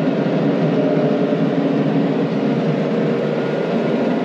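John Deere 9500 combine running steadily under harvesting load, a constant machine noise with a faint steady hum.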